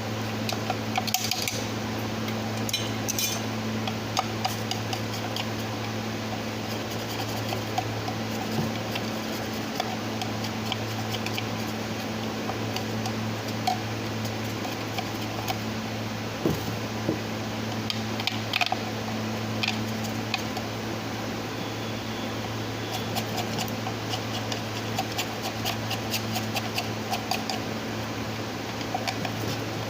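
Light metallic clinks and clatter of hand tools and metal parts being handled, coming in scattered bunches, over a steady low hum.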